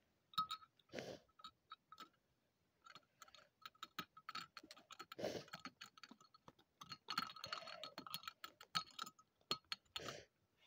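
Faint, irregular plastic clicks and taps with a few short rubbing scrapes, from a LEGO minifigure being scrubbed back and forth across a transparent LEGO window panel.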